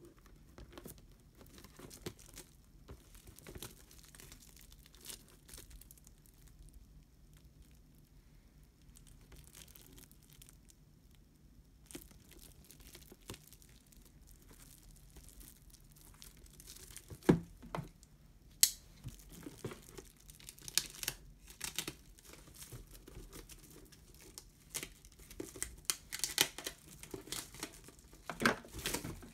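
Plastic shrink wrap on a model kit box crinkling and crackling as the box is handled, faint at first, then sharper and more frequent crackles from a little past halfway.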